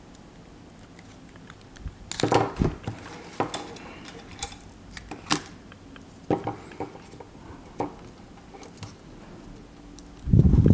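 Small sharp clicks and taps of fingers fitting a battery's wire plug into the tiny connector on a Palm M515 PDA's circuit board, scattered irregularly with the busiest clicking a couple of seconds in. A louder, low-pitched sound starts just before the end.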